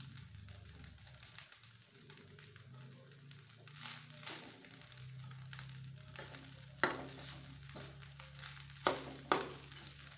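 Fried rice sizzling in a wok over a gas flame while a spatula scrapes and knocks against the pan, with a few sharp clanks, the loudest in the second half.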